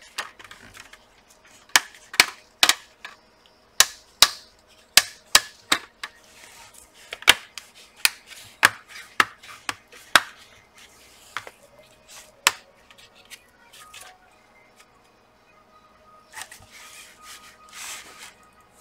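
Plastic display bezel of an Acer TravelMate P215 laptop being pressed back onto the lid, its clips snapping into place in a string of about twenty sharp clicks over the first dozen seconds, then soft rubbing near the end as it is pressed flat.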